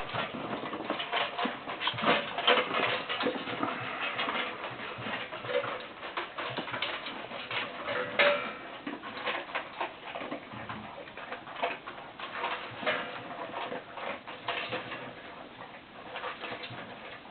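Dogs and a cat eating: a run of irregular short clicks and smacks of chewing and lapping at food, with a couple of louder ones about two and eight seconds in.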